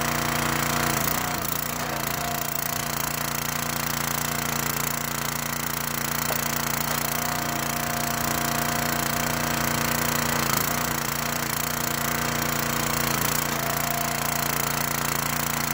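Small gas engine of a towable hydraulic log splitter running steadily, its note shifting a few times as the splitter is worked to split logs.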